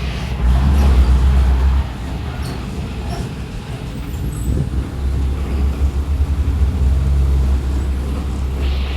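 Diesel engine of a Mercedes-Benz OF-1721 bus running with a deep rumble. It is louder for the first two seconds, eases, then builds again from about five seconds in. A hiss starts near the end.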